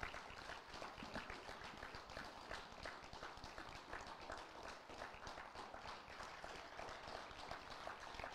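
Faint footsteps and shuffling of several people walking up to the front, a dense patter of small irregular steps.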